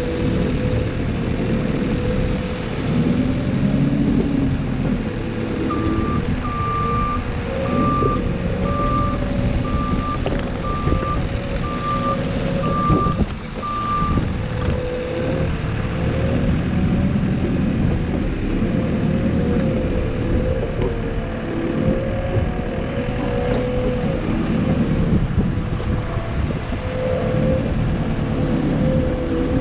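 Tractor engine running steadily, with a vehicle's reversing alarm beeping about once a second, roughly nine beeps, for several seconds partway through.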